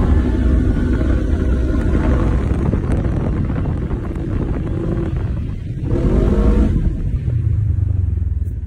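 Side-by-side UTV engine running under load on sand dunes. It revs up near the start and again about six seconds in, then settles to a lower, steadier note near the end.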